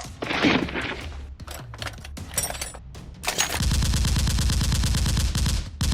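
Rapid automatic-gunfire sound effect, starting about three seconds in after a few scattered clicks and knocks, and running as one steady fast stream with a brief break near the end.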